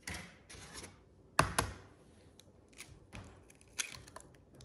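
A raw egg cracked with two sharp taps about a second and a half in, then small clicks and crackles as the shell is pulled apart, after a brief rustle of the cardboard egg carton.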